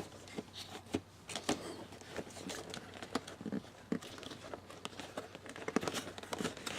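Toy packaging being handled and opened: scattered small clicks, taps and crinkles of cardboard flaps and packing.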